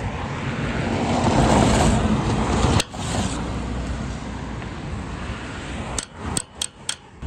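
A car passes on a wet road, its noise swelling and then fading over the first few seconds. Near the end a pedestrian crossing push button is pressed quickly about four times, each press a sharp click.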